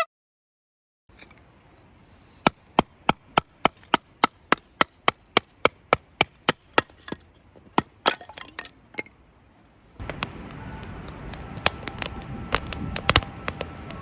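A quick, even series of about sixteen sharp wooden-sounding knocks, about three a second, then a few irregular knocks. Near the end, background music comes in.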